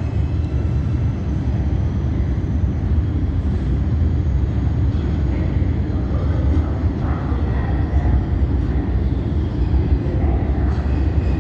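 Subway train running through the underground station: a steady, loud low rumble, with faint higher tones coming in during the second half.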